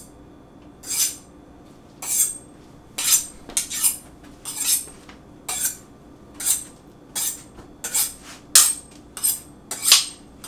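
Chef's knife being drawn along a honing steel: a series of short metallic scraping strokes, about one a second at first and coming quicker near the end.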